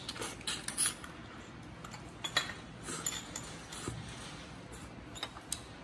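Short, sharp sucking and slurping noises, a dozen or so brief ones spread through the few seconds, as a person sucks the meat out of cooked ốc len (mud creeper snail) shells coated in coconut-milk sauce.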